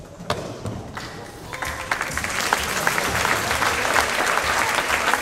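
Audience applauding, starting about a second and a half in and building to a steady clatter, after a couple of faint thumps.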